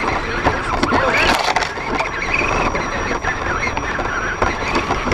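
Axial SCX10 RC rock crawler's electric motor and geared drivetrain whining close up from a camera on its hood, the pitch rising and falling with the throttle, with scattered knocks and scraping as it pushes through dry grass and brush.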